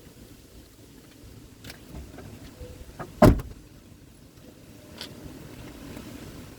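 Knock from a Lada Vesta's rear suspension: one loud sharp thud about three seconds in, with a few lighter clicks around it, over a low steady rumble. The owner has tried strut-mount spacers and a silicone ring under a torn lower spring seat without curing the knock.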